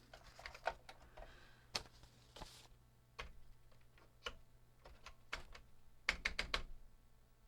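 Keystrokes on a computer keyboard: scattered single key presses, then a quick run of several keys about six seconds in.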